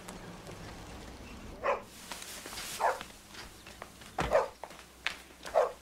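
A dog barking: about four short single barks roughly a second apart, with a low thump about four seconds in.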